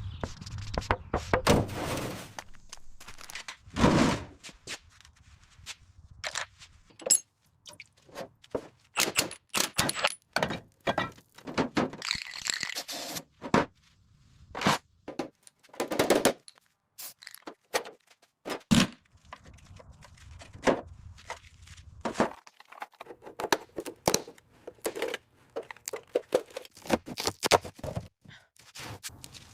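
A long run of irregular knocks, thunks and scrapes from hands-on repair work, with the loudest knocks about 4, 16 and 19 seconds in and quiet gaps between strikes.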